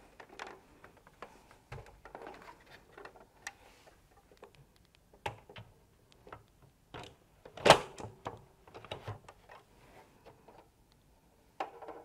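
Scattered clicks, taps and knocks of a Danfoss iC7-Automation drive's plastic housing being handled and fitted onto a metal mounting plate, with one sharp knock, louder than the rest, a little past the middle.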